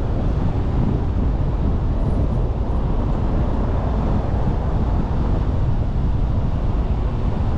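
Steady wind rumble buffeting the microphone, heaviest in the low end, with no break or change.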